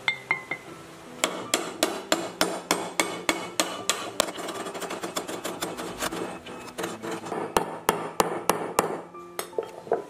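A hammer tapping a new ball bearing down into the bore of a water pump's metal end cover, in a quick run of sharp blows, about three or four a second. The blows start about a second in and stop near the end.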